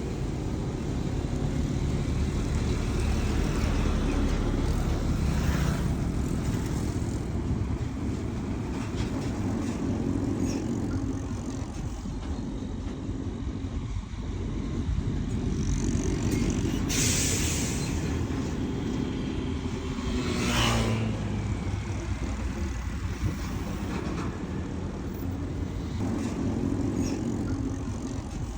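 Diesel engines of dump trucks and a crawler bulldozer running steadily, swelling and easing as the machines work. There is a short hiss about two-thirds of the way through, and a sharp clank a few seconds later.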